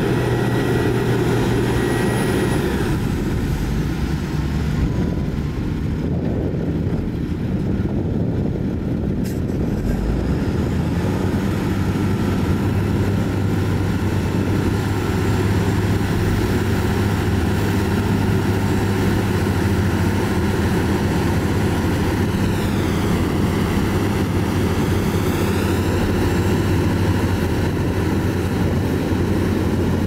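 Shantui crawler bulldozer's diesel engine running steadily under load while pushing sand.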